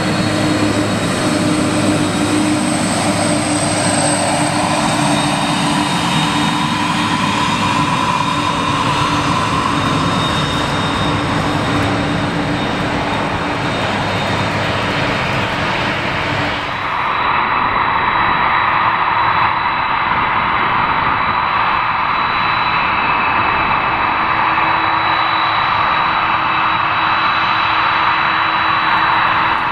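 Jet engine noise from a KLM Boeing 747-400's four General Electric CF6-80C2 turbofans at taxi thrust: a steady whine over a rushing roar. About 17 seconds in the sound changes abruptly to a steadier whine with a stronger mid-pitched rush.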